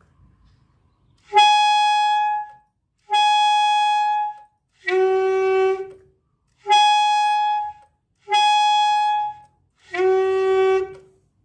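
Saxophone playing six held notes in two rounds of three. Twice the high note (high F) comes out clean, then the third attempt drops to a lower, dull 'ood' tone. The note sounds when the air is aimed upward and falls when it is blown straight through the middle.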